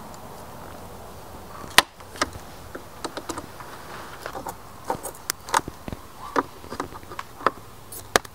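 Aviation tin snips cutting through the grid of a plastic crate: a run of irregular sharp snaps and clicks, the loudest about two seconds in.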